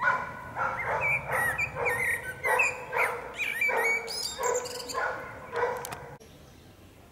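A dog barking, roughly two barks a second, with bird chirps above the barks; it starts abruptly and cuts off suddenly about six seconds in.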